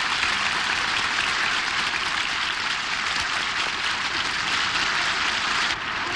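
Large studio audience applauding, a dense, steady clapping.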